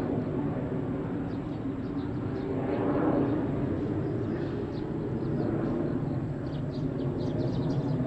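Steady low rumble of distant motor noise, swelling and easing off about three seconds in, with faint short high chirps in the second half.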